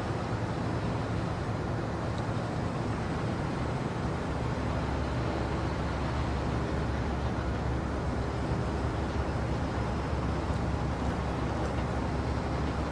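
Steady low rumble of traffic noise.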